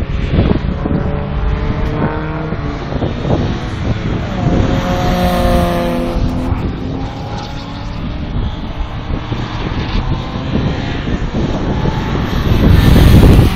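Race cars on a circuit driving past at speed, one engine note climbing as the car accelerates and then fading as it goes by. A loud low rush comes near the end.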